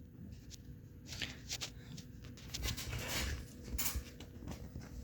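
Paper pages of a printed catalog being handled and turned: soft, scattered rustles and flicks of paper.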